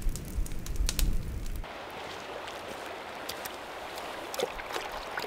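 A wood campfire crackling with sharp pops over a low rumble, which cuts off suddenly about a second and a half in. A shallow river then flows with a steady rushing hiss and small splashes as a pot is dipped into the water.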